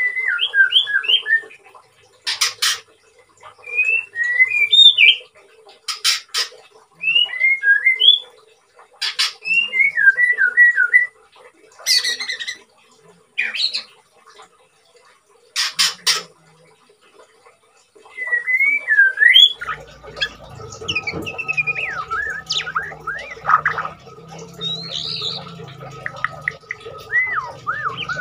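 White-rumped shama (murai batu) singing in its cage after a full moult into new feathers: short runs of quick, clear whistled notes alternating with loud harsh notes, with short pauses between phrases. A low steady hum comes in about two-thirds of the way through.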